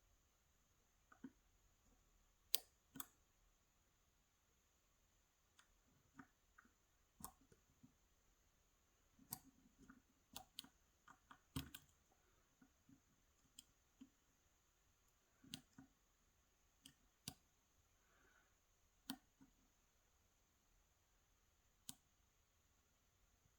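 Faint, irregular clicks and taps of picking tools working the pins of a Yale 2000 Plus lock, about twenty scattered clicks with the sharpest about two and a half seconds in.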